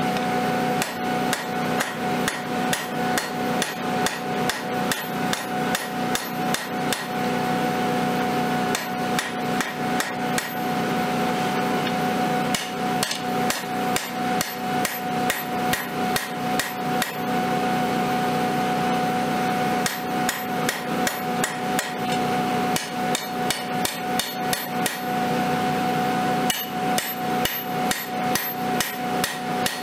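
Hand hammer striking red-hot 5160 leaf spring steel on an anvil, about three blows a second in runs broken by short pauses, as a Bowie blade is drawn out. A steady hum runs under the blows.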